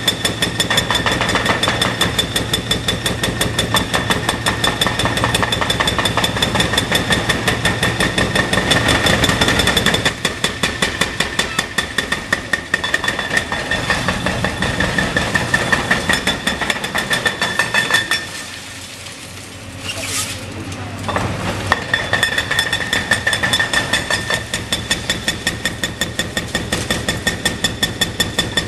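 Hydraulic breaker on a Caterpillar excavator hammering a reinforced concrete bridge deck: a fast, steady rattle of blows with a ringing tone over the excavator's engine. The hammering stops for a few seconds about two-thirds of the way through, then starts again.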